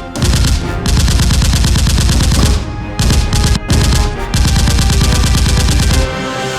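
Fast, loud rattling bursts like rapid fire, in several long stretches broken by short gaps, over cartoon background music.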